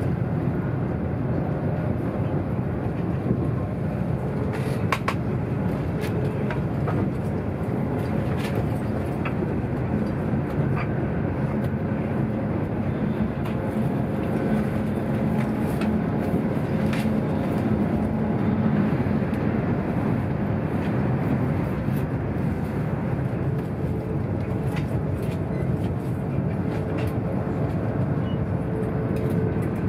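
Steady low rumble of a RENFE AVE high-speed train running at speed, heard inside the passenger car, with a faint steady hum and a few light clicks.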